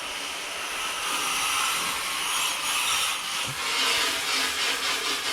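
Garden hose spraying water against the coil fins of an air conditioner's outdoor condenser unit: a steady hiss that grows a little louder after about a second.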